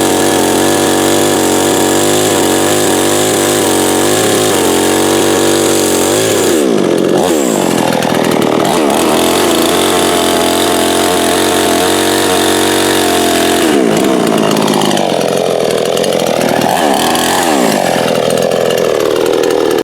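58cc two-stroke chainsaw engine running at high revs while cutting wood. Its pitch drops and recovers several times after the first few seconds as the chain bites under load.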